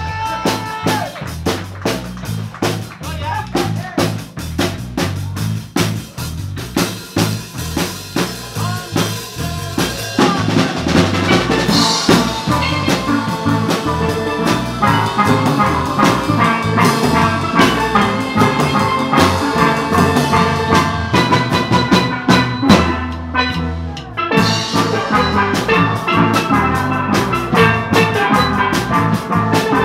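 Live steel band playing: steel pans with a drum kit and electric bass guitar in a steady rhythm. The pans grow fuller about ten seconds in, and the band briefly drops out to a low held note about two-thirds through before coming back in.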